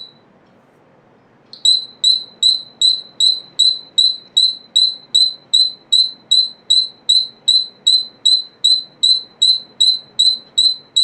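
ADE AD-28 flange-type piezo buzzer on 12 V DC sounding its interrupted tone: one short high-pitched beep at the start, then, after about a second and a half, a steady train of sharp high beeps, a little over two a second.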